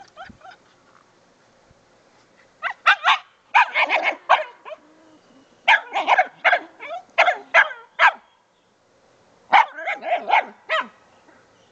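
A young Jagdterrier (German hunting terrier) barking excitedly at a squirrel held in a wire cage trap. The sharp, high barks come in four quick volleys with short pauses between them.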